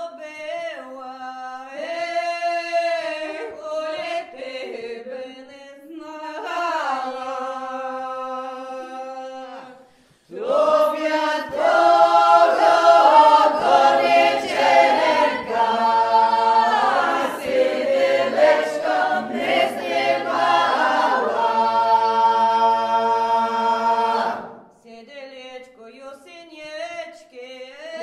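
Unaccompanied folk vocal ensemble singing a traditional song in several voices. A quieter passage breaks off about ten seconds in, and a louder, fuller section with a low held note follows. It drops back to quieter singing a few seconds before the end.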